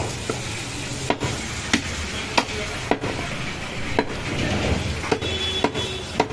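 A butcher's blade chopping goat meat into medium-sized pieces: about ten sharp chops, roughly one every half-second to second, over steady background noise.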